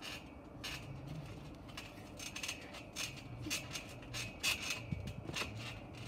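Steel coil springs of a backyard trampoline squeaking and clicking irregularly as the mat is bounced on.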